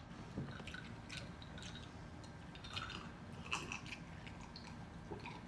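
Faint chewing of food close to the microphone, with a few soft, scattered mouth clicks and smacks.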